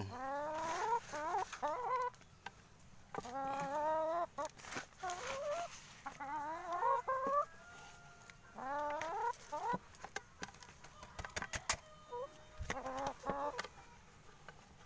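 Brown laying hens clucking in about five bouts of wavering, rising-and-falling calls, with a few sharp taps about two-thirds of the way through.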